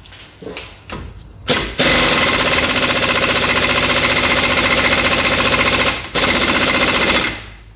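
Impact wrench hammering a bolt tight through a 17 mm socket: a long run of about four seconds, a brief stop, then about another second of hammering.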